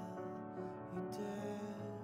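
Background music: a slow, tender piano ballad with long held notes.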